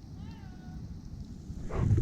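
A faint, short whine-like animal call that falls in pitch and then levels out, followed near the end by a louder rustling.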